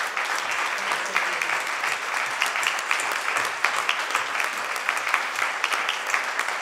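Audience applause: many hands clapping at an even, sustained level.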